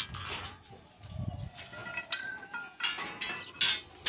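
Steel railing pipes clinking and knocking as they are handled. About halfway through, one sharp metal clink rings on briefly, and there is another loud knock near the end.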